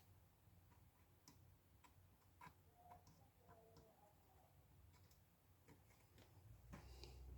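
Near silence with faint, scattered small clicks and taps at uneven intervals over a low steady hum.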